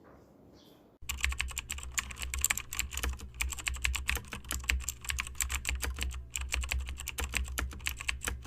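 Rapid, irregular clicking over a steady low hum, starting about a second in and cutting off abruptly at the end.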